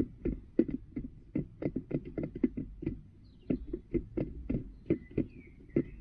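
A hen pecking feed from a red plastic feeder pan: rapid, irregular knocks, about four a second, with a few faint high chirps over them.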